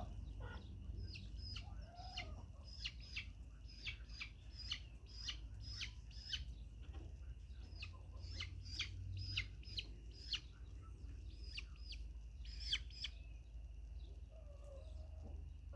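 Chickens: a run of short, high, falling chirps at about two a second that stops about thirteen seconds in, with a lower call near the start and another near the end, over a steady low hum.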